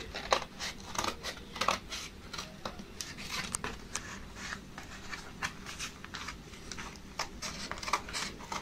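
Scissors cutting through a sheet of corrugated cardboard: a run of irregular, crisp snips.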